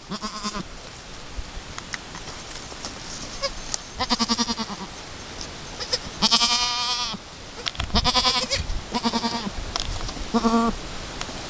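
Alpine goats bleating: about six bleats, the longest and loudest one, quavering, about six seconds in.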